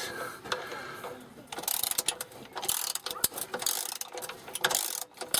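Rapid metallic clicking and rattling of hand tools working at the fuel filter's fittings, in several short runs.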